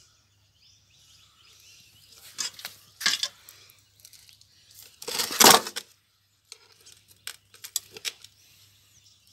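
Metal pots and utensils being handled: scattered clinks and scrapes, the loudest a half-second scrape about five seconds in, then a few light clicks.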